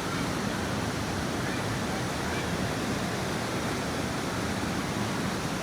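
Steady rushing noise of flowing water, an even hiss with no distinct events.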